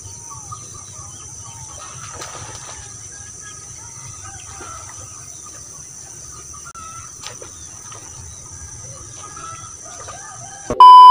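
Open-air ambience of scattered bird calls over a steady high-pitched drone and a low rumble. Near the end a loud electronic beep cuts in.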